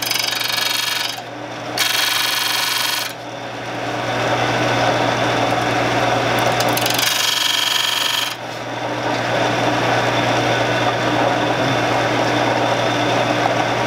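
Shopsmith running its spinning abrasive sharpening disc with a steady hum, as a carving tool's bevel is pressed against it in three short grinding passes, the last about seven seconds in. After that the machine runs on without the tool touching it.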